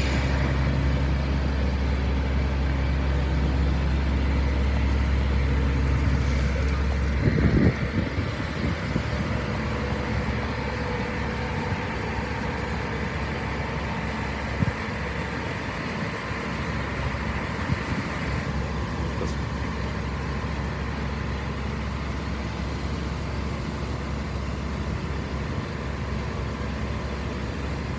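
DAF CF suction excavator truck running steadily. About seven seconds in, a strong low hum drops away with a brief clunk, and the machine runs on at a lower, steady level.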